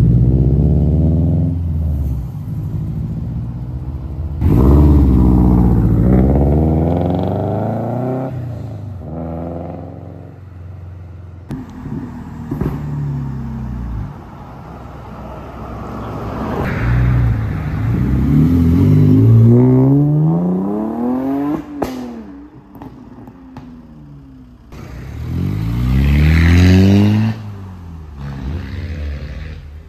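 Several cars accelerating away one after another, each engine note climbing and stepping down at gear changes, then fading. The loudest runs come near the start, about five seconds in, around the middle and a few seconds before the end, with quieter gaps between the cars.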